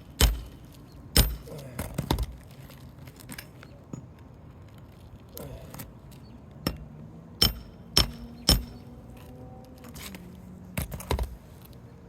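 Irregular sharp metallic clicks and knocks, about ten in all, from a Roof Snake pry bar worked under asphalt shingles to get at and pull the roofing nails.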